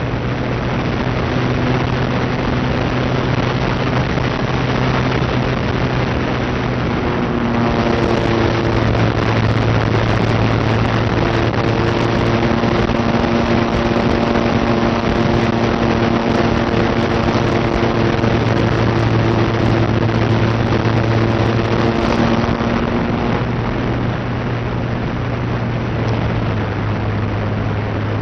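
Electric motor and propeller of a small FPV radio-controlled plane in flight, heard from on board: a steady hum under a rush of wind. The motor note gets louder and fuller from about a quarter of the way in and eases back about three quarters through, following the throttle.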